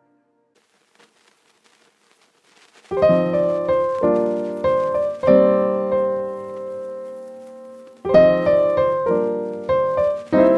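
Background music: near silence for the first few seconds, then piano chords start about three seconds in, struck and left to ring, with a fresh run of chords about eight seconds in.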